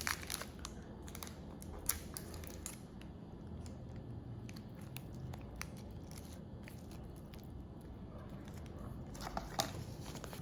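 Food and packaging being handled while eating: scattered sharp clicks, crinkles and small bites, over a steady low hum.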